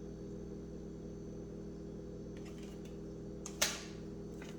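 Steady low machine hum, with a few light clicks about two and a half seconds in and one sharp click about a second later.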